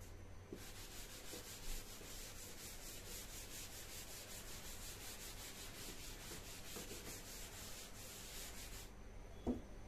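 Felt duster wiping chalk off a blackboard: a steady rubbing hiss of quick back-and-forth strokes that stops about nine seconds in, followed by a light knock.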